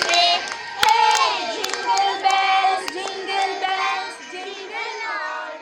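A group of children's voices singing and shouting together, with a few sharp claps.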